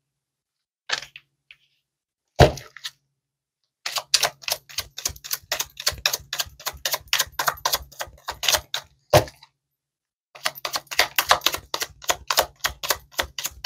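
A deck of tarot cards being shuffled: fast runs of crisp card clicks that break off for a moment a few seconds before the end and then start again. Earlier there are a couple of single, louder knocks.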